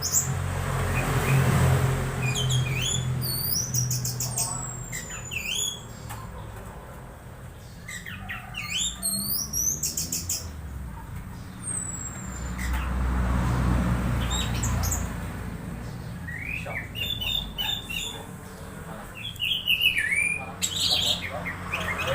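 Orange-headed thrush giving scattered clusters of short, sharp chirps and squeaky sweeping call notes, with pauses between the bursts. Underneath, a low rumble swells up near the start and again about midway.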